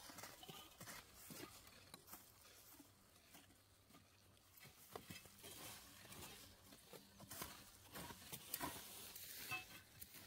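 Near silence with faint, irregular taps and clicks.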